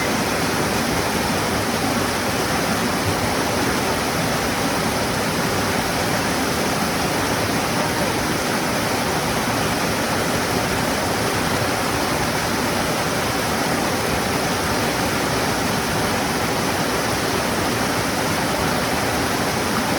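Waterfall pouring steadily: an even, constant rush of falling water.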